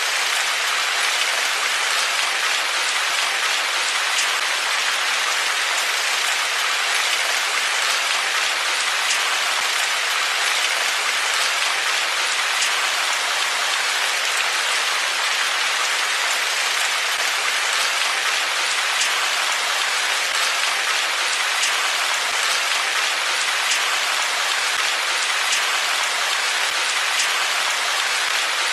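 Steady rain falling: an even hiss with faint ticks of individual drops, unchanging throughout.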